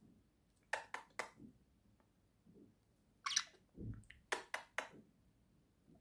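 A budgerigar husking seeds with its beak, making sharp, crisp clicks in quick bunches: three about a second in, then four more between about three and five seconds in. A soft low thump comes around four seconds in.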